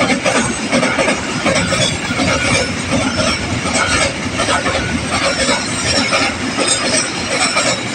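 Train passing close by, its wagons' wheels rumbling and clattering steadily over the rails.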